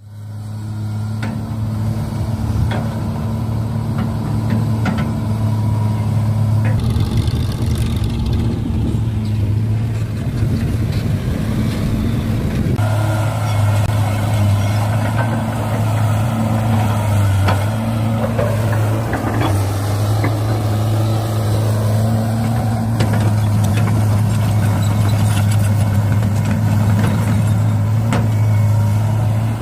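Miniature RC excavator and dump truck running: a steady low engine-like hum throughout. Between about seven and thirteen seconds in it turns rougher and noisier, and after that more churning, grinding working noise rises over the hum.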